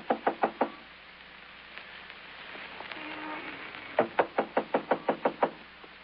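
Knuckles rapping on a wooden door, a radio sound effect. A short run of quick knocks comes at the start, and a longer run of about eight comes about four seconds in.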